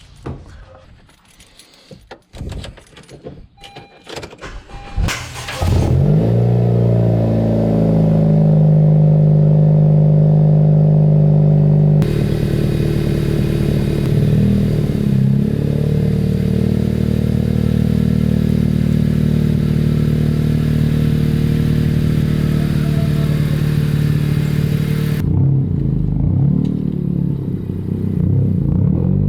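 Keys jangling and clicking, then about five seconds in a car engine starts and settles into a loud, steady idle, wavering briefly a few times.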